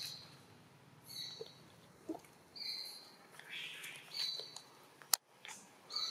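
Short high-pitched animal calls, repeated five times about every one and a half seconds, with a single sharp click about five seconds in.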